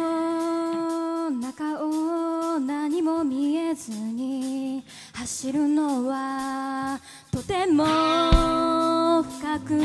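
A woman singing solo into a microphone, unaccompanied, in long held notes broken by short pauses. There is a single low thump about eight seconds in.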